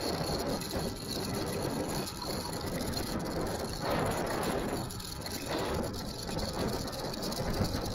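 Rushing wind and road noise from riding a Kaabo Wolf Warrior 11 electric scooter, with wind buffeting the camera microphone; the noise is steady, swelling and easing a little.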